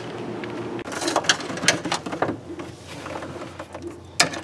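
Small metal hardware clinking and clicking as a bolt, washers and nut are fitted by hand onto an aluminium steering plate. The clinks cluster in the middle, with one sharp click near the end.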